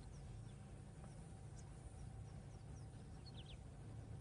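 Faint natural ambience: scattered short, high bird chirps over a low, steady background hum.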